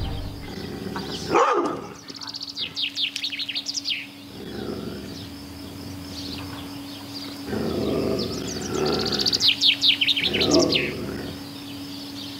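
Small songbirds chirping in quick high trills, in two bouts. Short dog barks come in bursts under and around the second bout.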